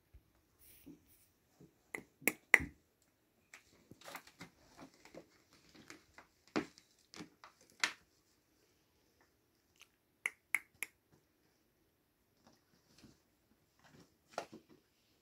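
Sharp clicks in two quick runs of three, with scattered single clicks and soft rustling between, as kittens wrestle in a fabric cat bed.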